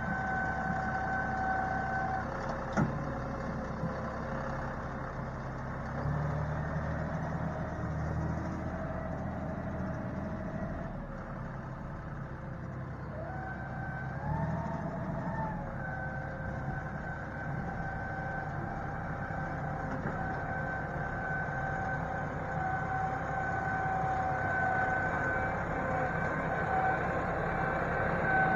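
John Deere utility tractor's diesel engine running as it works clay-and-rock fill with its front loader bucket, with a steady high whine over the engine. The whine rises and falls briefly about halfway through, there is one knock about three seconds in, and the sound grows louder near the end as the tractor comes closer.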